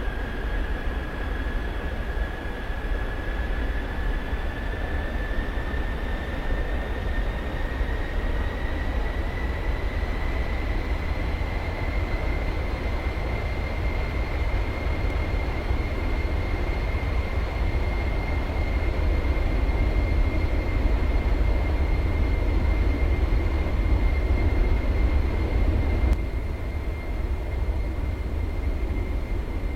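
Military aircraft engine running with a deep rumble and a high turbine whine. The whine climbs slowly in pitch over the first ten seconds or so, then holds steady, and the sound drops slightly a few seconds before the end.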